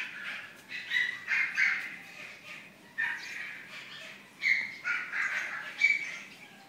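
Black-and-tan Pomeranian barking in a string of short, high-pitched yaps with brief, uneven gaps, tailing off near the end.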